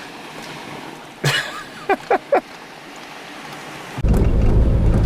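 A car engine running with a steady low rumble that comes in suddenly near the end. Before it, a single thump about a second in and three short squeaky sounds in quick succession.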